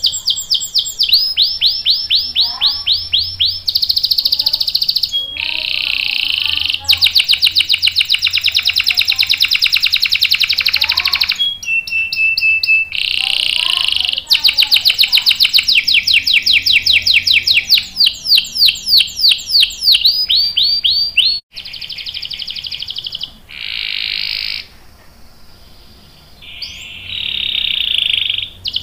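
Domestic canary singing a long rolling song: phrase after phrase of fast trills of rapidly repeated high notes, some sweeping up and some down. The song grows quieter and more broken near the end.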